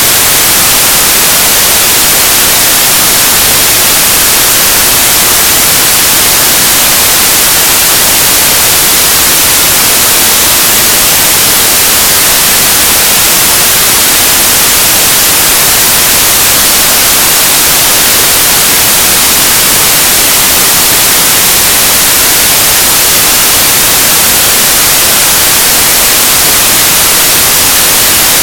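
Loud, steady static hiss, even and unchanging, strongest in the highs.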